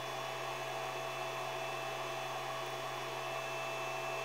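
Steady low electrical hum with a faint higher steady tone over it, unchanging throughout.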